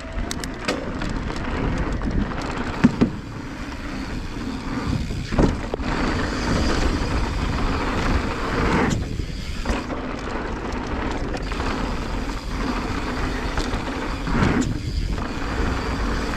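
Mountain bike riding down a dirt trail: tyres rolling over the dirt, with the bike rattling and giving scattered short knocks over bumps.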